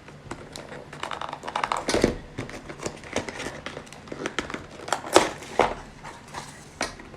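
A phone's retail packaging being opened and handled: crinkling with scattered clicks and knocks, the sharpest about five seconds in.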